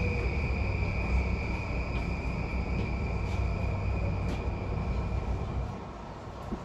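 Inside a JR East E235 series Yamanote Line car, the train's running sound: a low rumble with a steady high tone and a few faint clicks as it slows into the station. Both fall away about six seconds in as the train comes to a stop.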